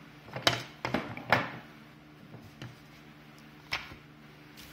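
Plastic pressure-washer accessories being handled and set down on a wooden surface: a few short clicks and knocks, the loudest about a second in, with a longer gap before two more near the end.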